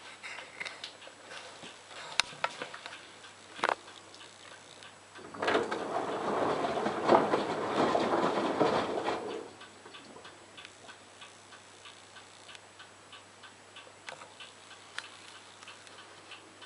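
LG washing machine mid-wash: a burst of swishing and sloshing lasting about four seconds as the drum turns the wet laundry, with light clicking and ticking before and after.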